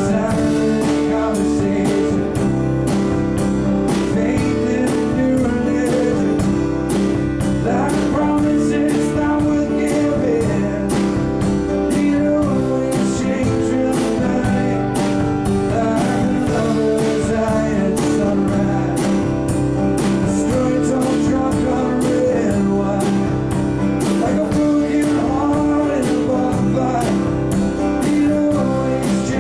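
Live band playing a country-rock song, guitars over a steady beat.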